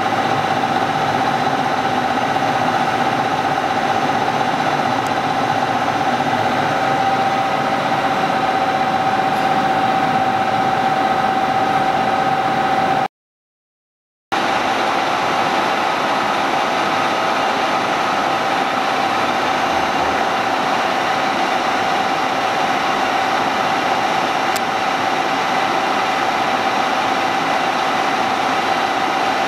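Steady running hum of a Wadkin CNC portal mill with a high, steady whine over it. It drops out for about a second around 13 seconds in, then resumes unchanged.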